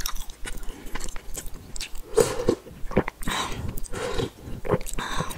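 Close-miked chewing and wet mouth sounds of a person eating, coming in irregular short bursts and clicks.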